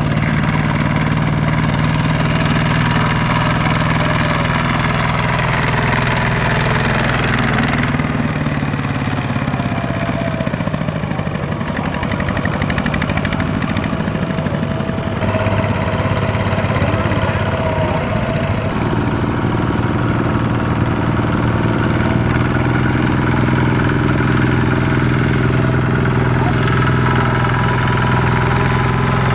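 Tractor diesel engine running steadily, its note shifting about eight seconds in and again about fifteen seconds in.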